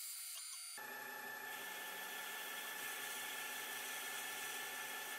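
Small CNC lathe running a turning pass on a brass rod: a steady whir from the spindle motor with a thin high whine, starting abruptly about a second in.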